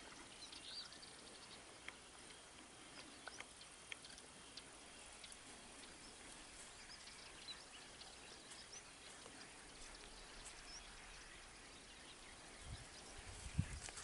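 Faint dusk countryside ambience: a low steady hiss with scattered small bird chirps and ticks. A few soft low thumps come near the end.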